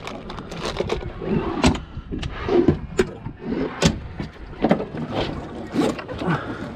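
Gear rummaged in a boat's storage compartments: a drawer and a hatch opened and shut, with a string of sharp knocks and clacks against the fibreglass and a bag being handled.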